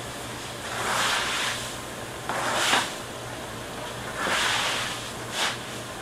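A whole tuna being washed down on a wet floor: about four short swishing, splashing bursts, a couple of seconds apart, over a steady low hum.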